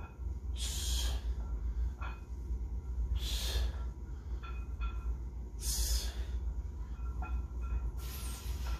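A weightlifter breathing out forcefully, one sharp breath about every two and a half seconds in time with his barbell reps, over a steady low rumble.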